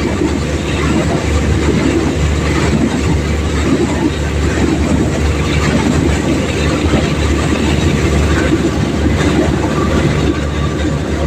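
Air compressor running while it flushes out a bore well, a steady loud mechanical rumble with no break.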